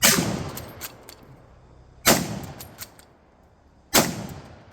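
Three rifle shots from a Type 99 Arisaka bolt-action rifle in 7.7x58mm, about two seconds apart, each with a short echoing tail. Sharp clicks of the bolt being worked come between the shots.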